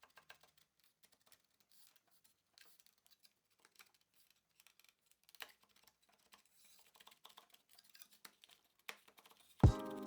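Faint, scattered light clicks and scratches, like small objects being handled, then music with drum hits starts abruptly near the end and is the loudest sound.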